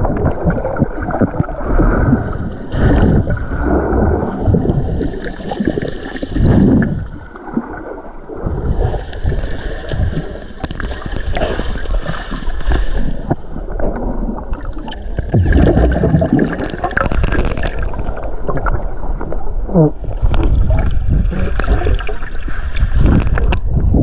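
Muffled rumbling and gurgling of water heard through a camera held underwater, with stretches of bubbly hiss that come and go every few seconds as the water churns around it.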